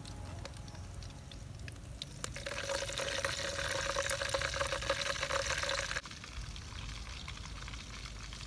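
Hot oil sizzling and crackling in a wok as fried birds are lifted out with tongs, a dense spitting hiss that swells about two seconds in and cuts off abruptly around six seconds.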